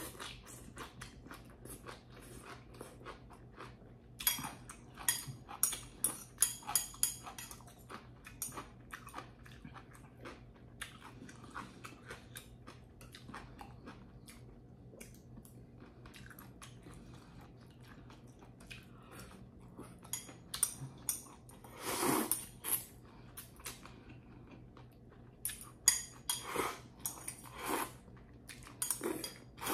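Eating sounds of saucy fettuccine pasta: wet chewing with many small smacks and clicks, and noodles slurped from a bowl. The longest slurp comes about two-thirds of the way through, with several shorter ones near the end.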